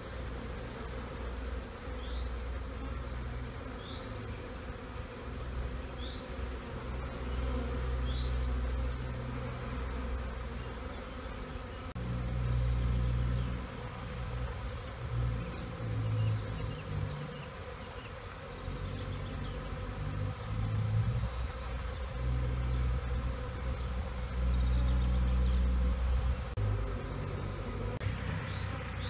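Honeybee swarm humming steadily as it clusters on and moves into a straw skep. Under the hum a low rumble swells and drops, and a short high chirp repeats about every two seconds during the first eight seconds.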